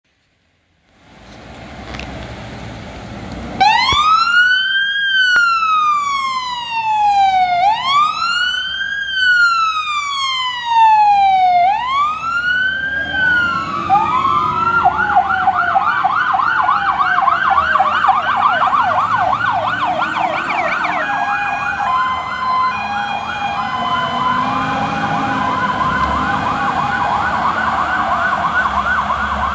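Fire engine sirens with truck engines rumbling beneath. A slow wail starts a few seconds in, climbing quickly and falling off over about four seconds per cycle, then switches about halfway to a fast yelp. A second, two-tone hi-lo siren joins about two-thirds of the way through.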